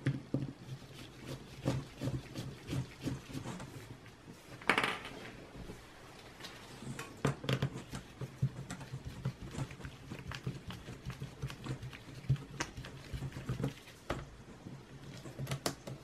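Mini Phillips screwdriver working the screws of a laptop's bottom cover: irregular light clicks and ticks of metal on screw and plastic, over a faint steady low hum.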